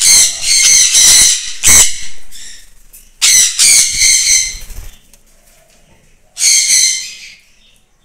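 Sun conures calling in three loud, high-pitched bouts: about two seconds at the start, again around three to five seconds in, and briefly about six and a half seconds in. During the first bout there is the flutter of wings as one conure flies off.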